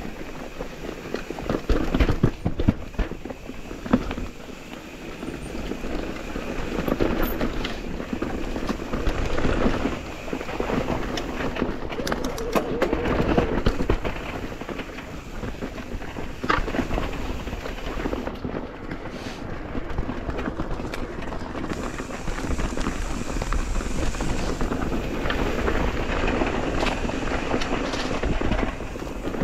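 Mountain e-bike riding over a rough trail: steady tyre and rolling noise with frequent clatter and knocks from the bike over bumps, swelling and easing as the terrain changes.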